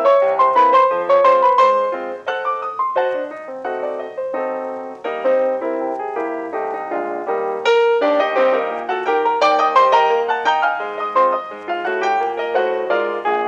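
Piano music of many quick notes, softer through the middle and louder again from about eight seconds in.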